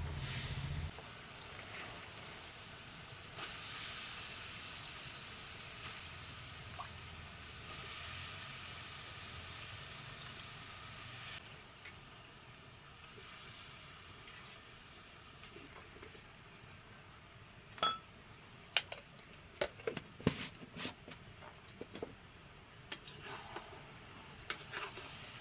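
Food sizzling in a frying pan, a hiss that swells and fades for the first ten seconds or so and then settles lower. In the second half a utensil clicks and scrapes against the pan now and then as the food is stirred.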